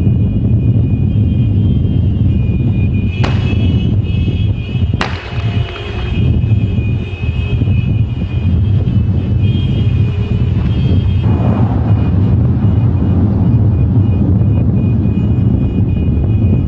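Steady low rumble of vehicles driving in a convoy, heard from inside a moving vehicle. There are two sharp knocks, about three and five seconds in, over faint steady high tones.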